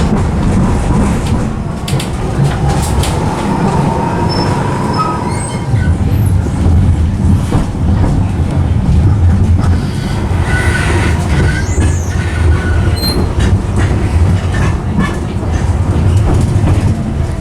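Tram running on its rails: a steady low rumble with clicks over the rail joints, and brief high wheel squeals about ten seconds in.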